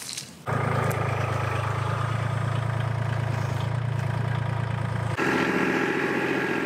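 Compact tractor engine running steadily as the front-end loader scoops into a wood chip pile. About five seconds in the sound changes abruptly to a higher-pitched, closer engine tone, as heard from the driver's seat.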